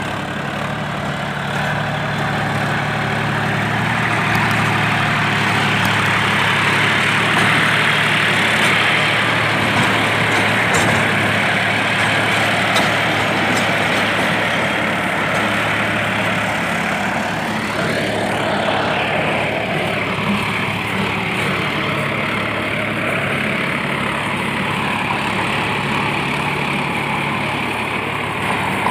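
John Deere 5204 tractor's three-cylinder diesel engine running steadily under load as its rear rotavator churns through dry stubble soil, a dense grinding hiss over the engine's drone. A whine glides up and back down about two-thirds through.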